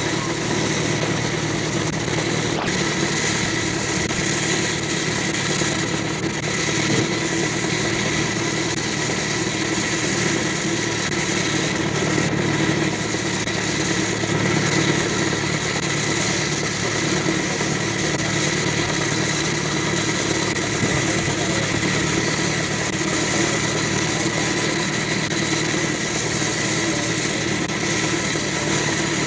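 Steady engine drone under heavy hiss and a whine of steady tones, as heard on a badly worn 16mm magnetic film soundtrack; no separate exhaust beats stand out.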